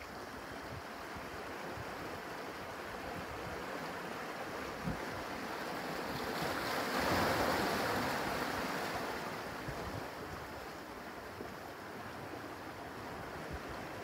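Small waves washing in over dark shoreline rocks. One surge swells to its loudest about halfway through and then ebbs away.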